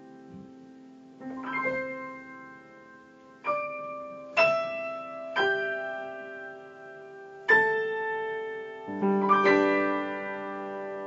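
Slow solo piano music: single notes and chords struck every second or two, each left to ring and fade.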